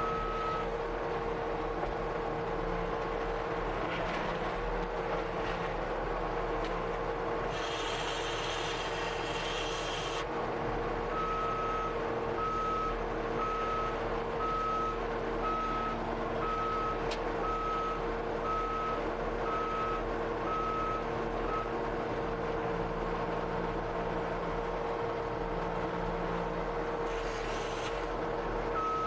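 Skid steer engine running steadily. Its backup alarm beeps at an even pace of roughly one beep a second for about ten seconds mid-way and starts again at the very end. A loud hiss lasting a couple of seconds comes in before the beeping, and a shorter one near the end.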